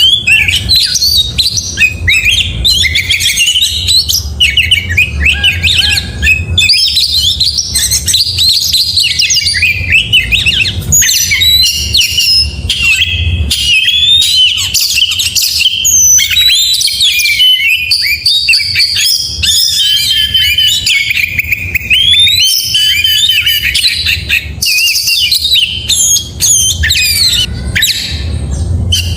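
Oriental magpie-robin singing continuously: a rapid, varied stream of clear whistles, sweeps and trills mixed with harsher notes, with hardly a pause.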